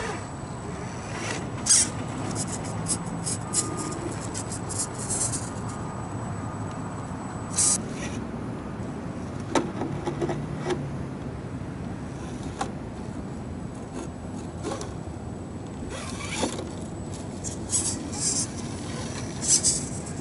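Axial SCX10 radio-controlled rock crawler's electric motor and gears whining in short, low bursts as it crawls over boulders, with scattered sharp clicks, clusters of them near the start and again near the end.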